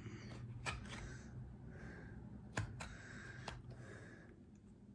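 A metal spoon scraping the last flesh from the inside of a papaya skin: soft scraping strokes that come and go, with a few light clicks.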